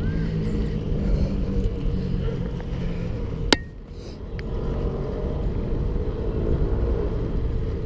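Wind rumbling on the microphone of a moving bicycle. A single sharp click comes about three and a half seconds in, and the rumble dips for a moment afterwards.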